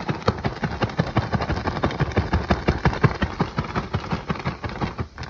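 Plastic bag being shaken hard and fast, fish pieces and seasoned flour tumbling inside it in a rapid, even rhythm of several shakes a second: the fish is being coated with breading before frying.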